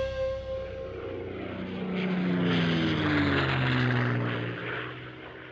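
Parkzone Extra 300 foam RC plane's electric motor and propeller flying past. The whine swells, falls in pitch as the plane goes by, and then fades away.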